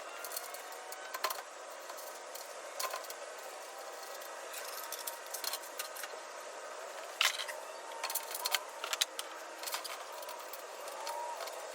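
Scattered light metallic clinks and knocks of tool-cart parts and hardware being handled, with a few sharper knocks about seven and eight seconds in, over a steady hiss.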